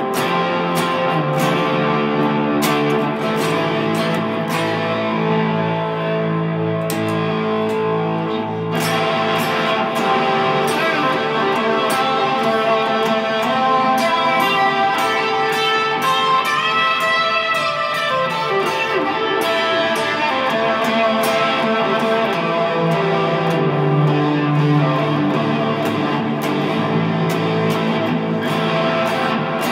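Telecaster electric guitar played through a Dr Z Cure tube amp and effects pedals (3PC Echopark NARB, Cooper FX Generation Loss, EQD Avalanche Run), with sustained notes and chords ringing on. About halfway through, a cluster of tones sweeps upward in pitch.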